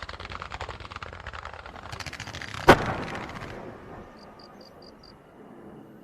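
Aerial firework shell crackling: dense, rapid popping, with one sharp loud bang a little under three seconds in. The crackle dies away after about three and a half seconds, leaving crickets chirping in short bursts.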